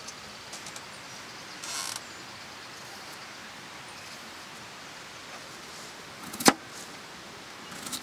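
Potatoes being prepared by hand: a brief scrape of a Y-shaped vegetable peeler on a potato, then a single sharp knock of a kitchen knife cutting through a potato onto the cutting board about six and a half seconds in, over the steady rush of a stream.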